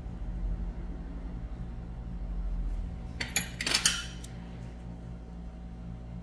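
Metal podiatry instruments clinking together in a short cluster of clinks about three and a half seconds in, over a steady low hum.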